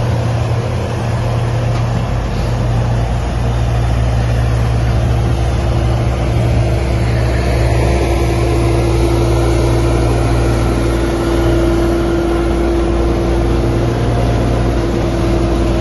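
Heavy diesel harvest machinery running steadily under load in a rice field, with a steady higher-pitched whine joining the engine drone about halfway through.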